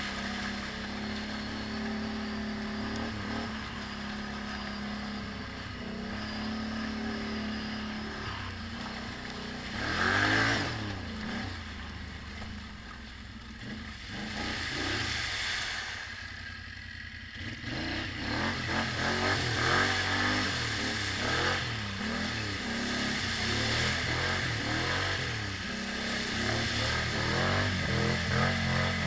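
ATV engine running, steady at first, with a loud surge about ten seconds in, then revved up and down again and again through the second half.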